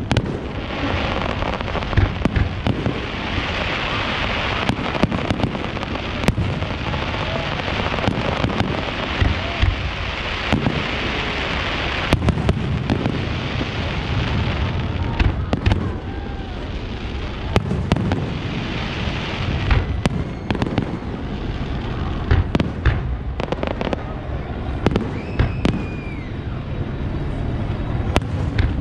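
Aerial fireworks shells bursting in a steady stream of booms and pops, with long stretches of dense crackling hiss between them.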